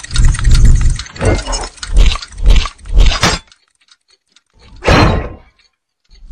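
Designed sound effects for an animated logo intro: a quick run of about six heavy metallic clanks and crashes with deep booms, then a short gap and one last hit about five seconds in.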